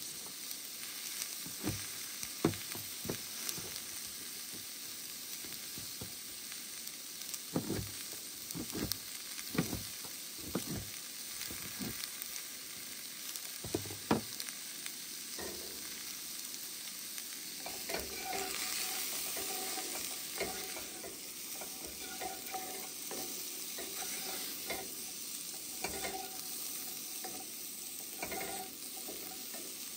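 Diced vegetables sizzling steadily in a cast-iron skillet on a camp stove, with a knife chopping sharply on a plastic cutting board through the first half. In the second half a wooden spoon stirs and scrapes the vegetables around the pan.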